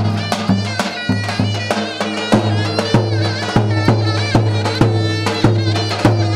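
Turkish folk dance music: a reedy wind instrument plays an ornamented melody over a steady drum beat and a low drone.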